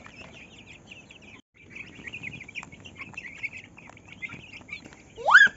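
A flock of young chickens cheeping continuously while pecking at grain, with a few faint taps. The sound drops out briefly about a second and a half in, and a single loud rising cry comes near the end.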